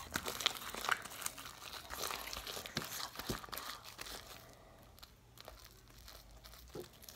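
Hands squeezing and stretching sticky, stringy homemade slime, making irregular wet clicks and crackles. The crackling thins out after about four seconds to occasional faint clicks.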